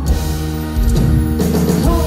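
Live pop-rock band playing an instrumental passage between sung lines: held keyboard and guitar chords over bass and drums.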